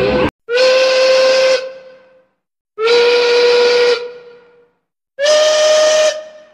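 Steam train whistle blown three times, steady blasts of about a second each with a hissing edge, each trailing off in an echo; the third blast is slightly higher in pitch.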